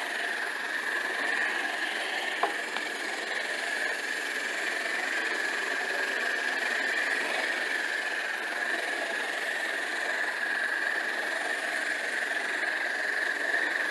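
Carpet-cleaning equipment's motor running steadily with a constant high whine while the carpet is pre-sprayed. A faint tick about two and a half seconds in.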